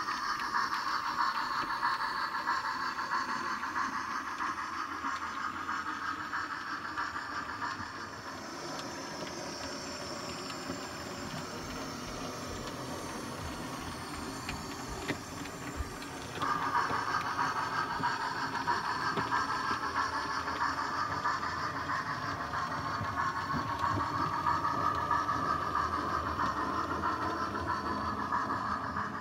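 00 gauge model of an Ivatt 2-6-2 tank locomotive running with an autocoach: a steady hiss over a low rumble from the wheels on the track. The hiss fades about eight seconds in, a couple of sharp clicks come about halfway through, and then the hiss cuts back in suddenly.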